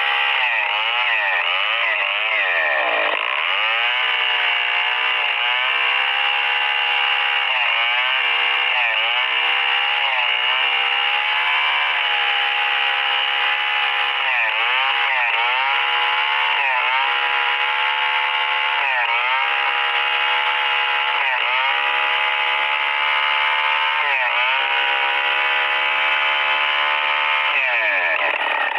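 STIHL 070 two-stroke chainsaw ripping a hardwood Merbau log lengthwise under full throttle. Its pitch sags briefly and recovers every second or two as the bar is worked forward and back through the cut.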